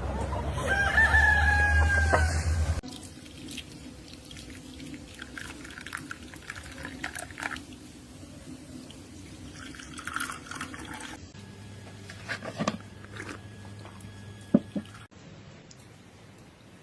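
A rooster crows once, a long held call. The sound then cuts off abruptly to a quieter background of scattered small clicks and knocks, with one sharper click near the end.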